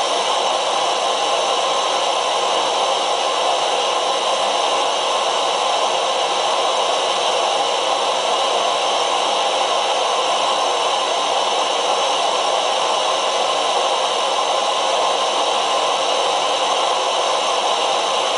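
Primus EtaPower MF stove burner running on an isobutane gas canister, a steady loud hiss, with the pot of water on it at a rolling boil.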